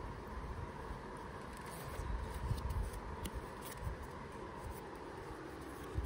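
Cardboard packaging being handled and lifted out of its box, giving faint rubbing and a few small clicks.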